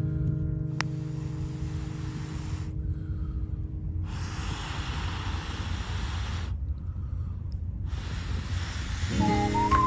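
Air being blown into a small campfire through a fire-blowing pipe: three long breathy blasts a couple of seconds apart, over a steady low rumble. A guitar chord is dying away at the start, and guitar music comes back near the end.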